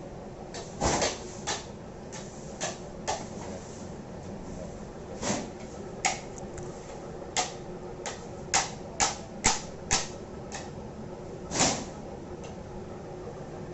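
Irregular sharp metal clinks and knocks, about fifteen in all, bunched most thickly in the middle, some with a short ring, from hand work on gearbox parts, over a steady faint hum.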